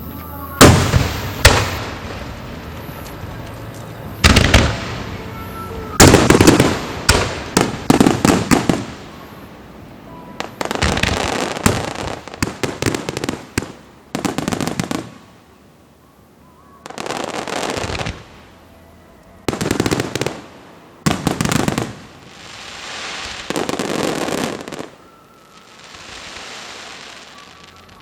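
Aerial firework shells of a large starmine bursting in rapid salvos: clusters of loud bangs and crackling come every few seconds, separated by short quieter lulls.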